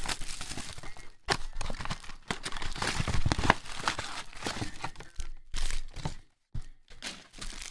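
Cardboard trading-card retail box being handled and torn open by hand: irregular rustling, scraping and sharp crackles of paperboard, with a brief pause a little after six seconds.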